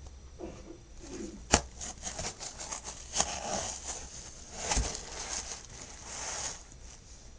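Rustling and small handling noises, with a sharp click about one and a half seconds in.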